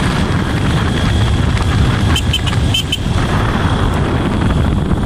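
Steady engine and road rumble heard from on board a moving road vehicle. A few short high chirps come a little after two seconds in.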